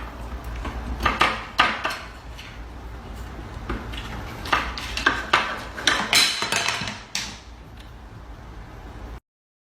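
Irregular clattering and clinking knocks, like hard household objects striking each other, over a steady low hum; the knocks thin out near the end.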